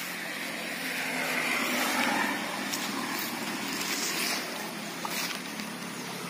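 Shallow stream water running steadily, a continuous rushing hiss that swells slightly in the middle.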